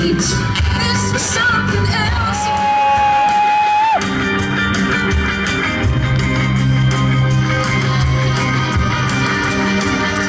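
A live rock band with a woman singing, ending on a long held note that cuts off abruptly about four seconds in. Then a new song starts up, with electric guitar and a steady bass line.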